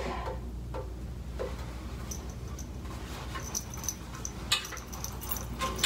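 French horn being twisted and tipped over a sink to drain its cleaning solution: faint handling noise with brief high squeaks, and a couple of sharp knocks near the end.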